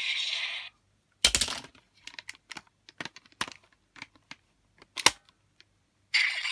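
Plastic clicks and taps from handling and pressing a Kamen Rider Revice toy stamp: a sharp click about a second in, a scatter of small clicks, and another sharp click near five seconds. The toy's small speaker plays a thin electronic sound effect that cuts off just under a second in, and another starts near the end.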